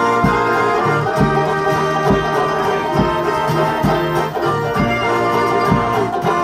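Instrumental break of a small folk band: banjo, acoustic guitar and accordion playing a lively tune over a steady low drum beat, about two beats a second.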